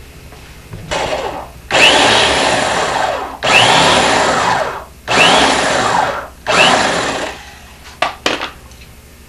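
Corded electric drill run in five bursts, a short one and then four longer ones, its motor whining up to speed at the start of each as it drives screws into wooden boat planking. Two short clicks follow near the end.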